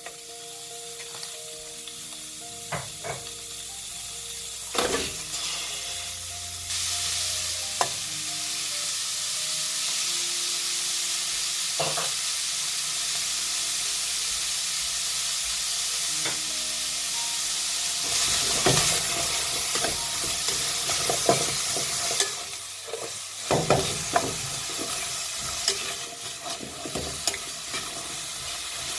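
Food sizzling as it fries in a pan, with occasional sharp clicks and scrapes of a utensil against the pan as it is stirred. The sizzle gets louder about a quarter of the way in. Faint background music plays under it early on.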